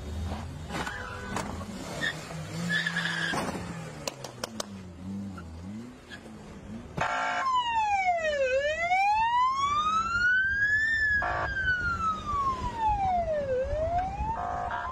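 Road and car noise with a few sharp knocks, then, about seven seconds in, a siren begins wailing, its pitch sweeping slowly down and up twice. Short blasts of a horn-like tone sound as it starts, midway, and near the end.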